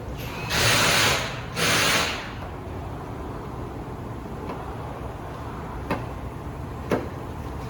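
Two short rasping rips, likely double-sided 3M tape pulled off its roll in quick succession, followed a few seconds later by two faint clicks.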